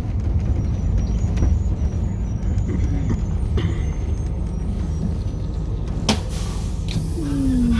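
A motor vehicle running, a steady low rumble, with a sharp click about six seconds in and a short falling whine near the end.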